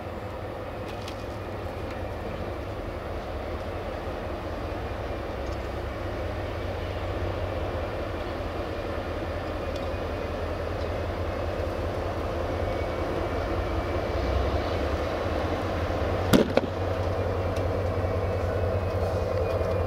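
Siemens ER20 Hercules diesel-electric locomotive running light, its diesel engine a steady low rumble growing louder as it approaches and passes close. A sharp double knock sounds about sixteen seconds in.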